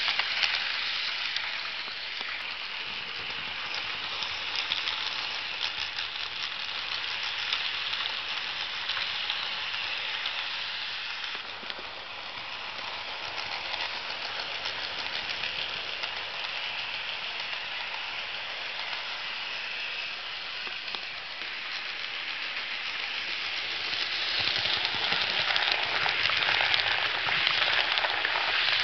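HO-scale model train with passenger coaches rolling along the track: a steady fine rattle of small wheels on the rails, louder near the start and again from about two-thirds of the way through as the coaches pass close by.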